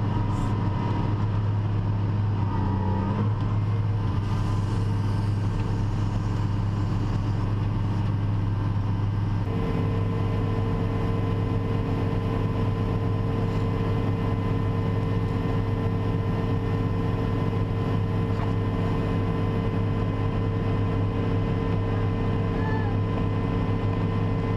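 A large farm machine's engine running steadily, a deep even drone. About nine seconds in, a higher steady hum joins it.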